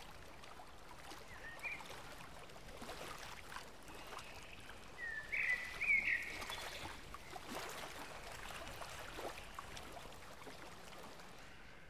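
Faint outdoor ambience: a low, steady hiss with a few short high chirps, one about two seconds in and a cluster about five to six seconds in.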